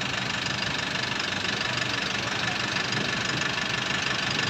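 Diesel engine idling steadily with a clattering knock, a thin steady high whine running over it, while an SUV is loaded onto a flatbed tow truck.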